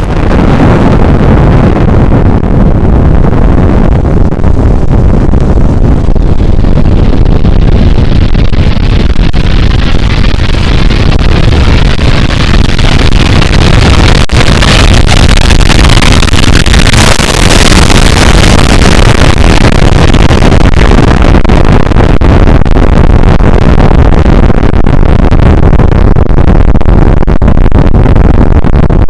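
Missile-impact explosion sound effect: a long, loud, distorted rumble of noise with a heavy deep low end that keeps going without letting up.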